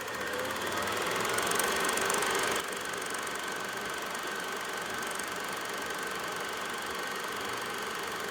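Steady mechanical whirring with a faint high whine, growing louder over the first two seconds, then dropping a little and holding steady.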